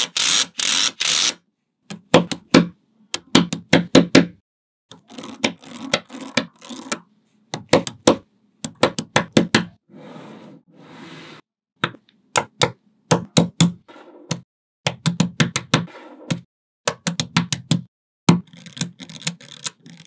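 Small neodymium magnetic balls clicking and snapping together in quick runs of clicks, broken by short silences; denser rattling in the first second.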